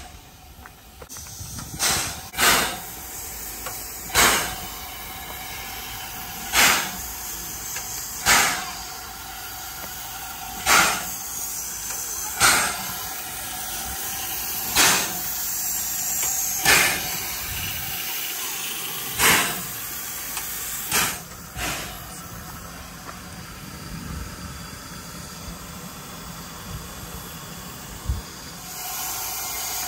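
Steam locomotive standing at rest with a steady hiss of steam, broken by short sharp puffs of steam exhaust about every two seconds. The puffs stop a little past twenty seconds in and the hiss goes on alone.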